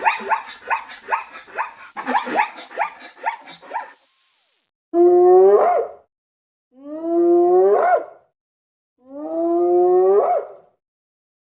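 Rapid, repeated short yelping calls from an animal, about four a second, for the first few seconds; then, from a different recording, three drawn-out calls about a second long, each held on one pitch and rising sharply at its end.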